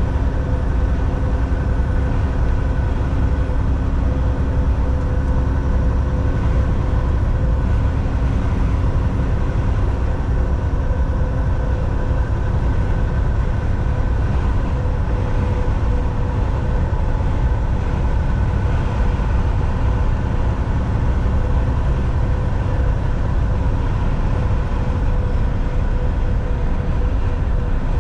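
Semi truck driving at steady speed on the highway: a continuous low engine and road rumble with a few constant whining tones over it.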